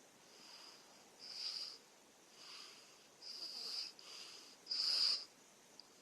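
A young child and a man asleep, snoring with high, whistling, wheezy breaths about once a second, alternating softer and louder. The loudest comes about five seconds in.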